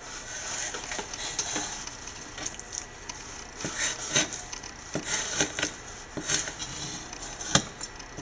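Knife cutting the belly trim off raw salmon fillets: soft scraping with scattered light taps, and one sharper knock near the end.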